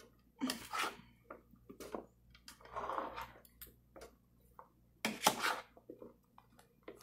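Spatula scraping and knocking against a pan while a heap of chopped vegetables is stirred and turned. The vegetables rustle with irregular clatters, the loudest a little after five seconds in.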